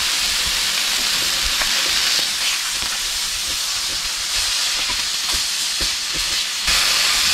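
Butter-coated, blackened redfish fillets sizzling in a hot cast iron skillet: a steady frying hiss with scattered small pops, stepping louder near the end.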